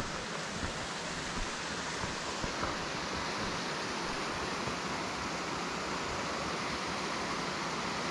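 Water spilling from a small dam outlet and running down a rock face, a steady rush. There are a few light ticks in the first seconds.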